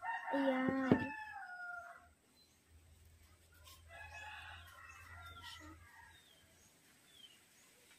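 Rooster crowing: one loud crow of about two seconds at the start, falling in pitch at its end, then a fainter crow from about three and a half seconds in.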